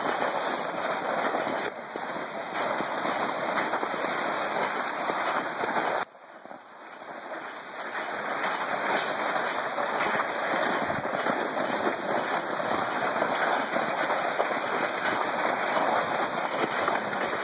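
Plastic sled hissing and scraping as it is pulled over packed, crusty snow, a steady rushing noise. It cuts out suddenly about six seconds in and builds back up over the next couple of seconds.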